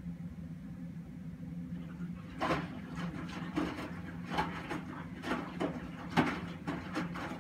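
Miele front-loading washing machine with its drum turning and a steady motor hum; from about two and a half seconds in, an unbalanced clump of laundry thuds and swishes irregularly as it tumbles in the drum, about twice a second.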